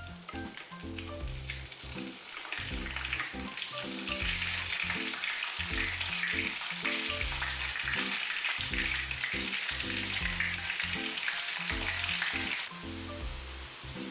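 Food frying in hot oil, a steady loud sizzle that builds over the first few seconds and cuts off abruptly near the end, over soft background music.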